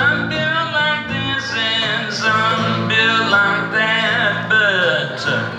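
Live blues played on an electric guitar, its melody notes bending and sliding in pitch over a steady low accompaniment.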